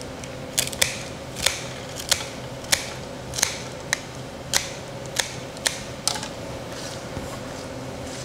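Florist's scissors snipping about eleven times, one sharp snip every half second or so, while the bouquet is trimmed, over a faint steady hum.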